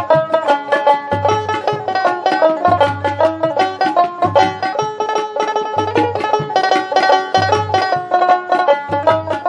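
Background music: a quick plucked-string tune over a low bass note that pulses about every second and a half.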